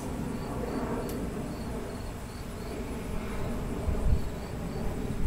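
An insect chirping steadily outdoors, short high chirps about two to three a second, over a low rumble that swells about four seconds in.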